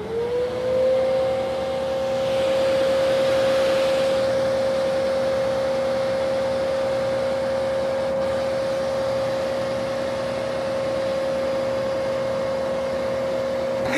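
Vacuum cleaner motor spinning up to speed at the start and then running with a steady whine over an airy suction hiss. The hiss swells louder for a couple of seconds near the start.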